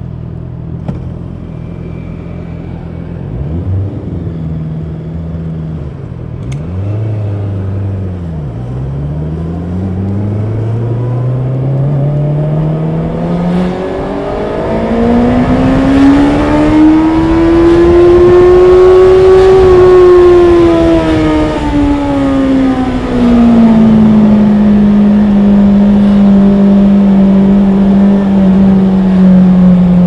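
Honda CB650R's inline-four engine blipped twice, then pulling away and accelerating, its pitch climbing steadily to a high-revving peak. It then eases off to a steady cruise.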